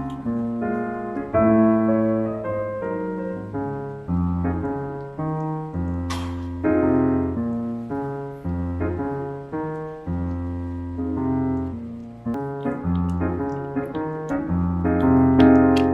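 Background piano music: a steady run of notes over a bass line.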